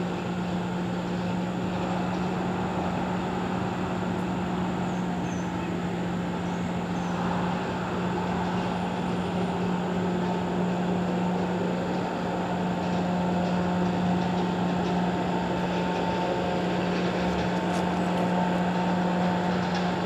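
A steady low mechanical hum holding one constant pitch, with a fainter higher drone above it, unchanging throughout.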